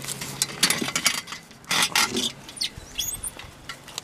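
Irregular rustling and scuffing noises, with a brief high bird chirp about three seconds in.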